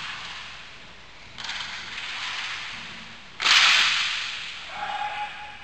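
Sounds of a roller hockey game: one loud, sharp smack about three and a half seconds in, typical of a stick shot or the puck hitting the boards, which echoes away over about a second above a steady rink hiss.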